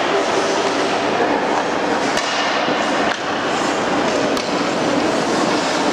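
Youth ice hockey game in play: a steady scraping haze of skates on the ice, with three sharp clacks of stick and puck.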